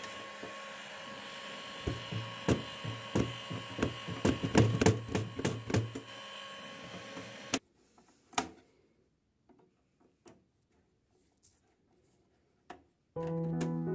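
Heat gun blowing steadily while a hand scraper scrapes and knocks at heat-softened layers of old paint around a window hinge, in a run of quick strokes. The hum cuts off suddenly about seven and a half seconds in, leaving near silence with a few isolated clicks, and guitar music starts near the end.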